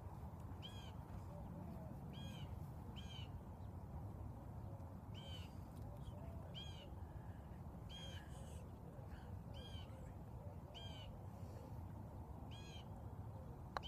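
A crow cawing over and over, about ten harsh caws a second or two apart, over a steady low rumble. Near the end there is a single sharp click, a putter striking a golf ball.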